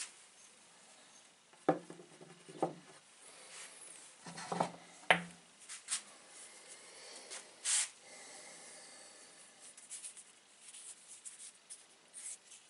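Stones being handled on a tabletop: a few knocks of rock set down on the table, about two seconds in and again around four to five seconds in, with softer rubbing and scraping of hands and stone between.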